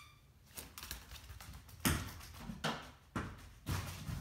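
A scattered series of short knocks and clicks, about six in four seconds, the louder ones in the second half.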